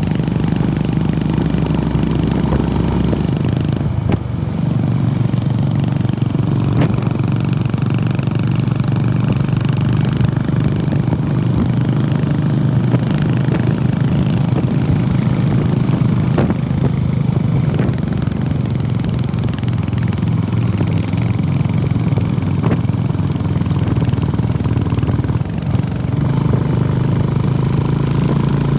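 Honda CB350RS's air-cooled single-cylinder engine running steadily under way. The engine note drops briefly about four seconds in and again near the end, and a few sharp knocks come through.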